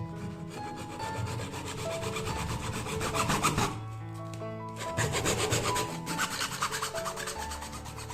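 A saw cutting through PVC pipe with rapid rasping strokes, pausing briefly about four seconds in.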